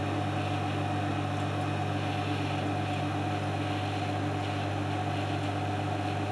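Microwave oven running with its turntable going round, a steady low hum that holds even throughout.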